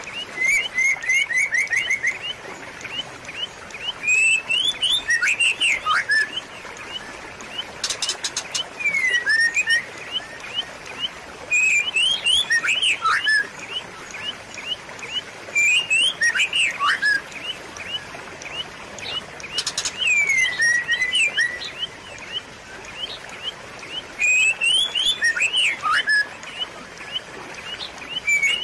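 Songbirds chirping, with a steady run of quick chips and a phrase of sweeping, rising and falling whistles about every four seconds, over a steady background rush of running water.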